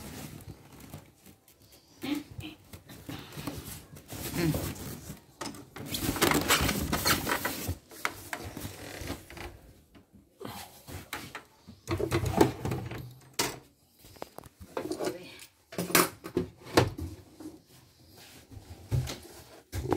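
Handling noise from unpacking an embroidery machine: styrofoam packing and cardboard rubbing and scraping, with scattered sharp knocks.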